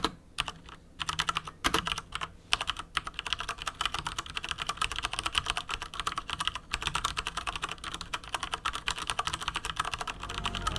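Cougar Attack X3 RGB mechanical keyboard with Cherry MX Brown switches being typed on fast: a dense stream of key clacks, with a few brief pauses in the first couple of seconds.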